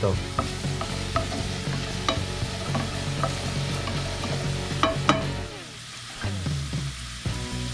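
Diced sweet potato frying in oil in a skillet, with a wooden spatula scraping and tapping against the pan as it is stirred. The stirring stops about five seconds in, leaving the oil sizzling.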